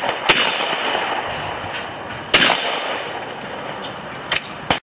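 Shotgun shots at a clay-target shoot: two loud reports about two seconds apart, each with a short ringing tail, then two sharper shots in quick succession near the end, over a steady background hiss. The sound cuts off abruptly right after.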